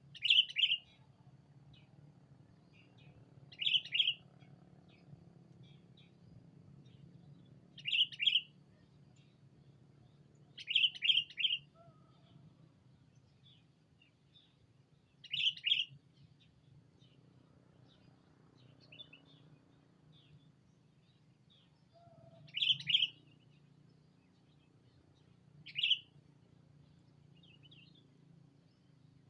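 Sooty-headed bulbul (kutilang) decoy calling to lure rival bulbuls: seven loud bursts of two or three quick chirpy notes, a few seconds apart, with fainter chirps between.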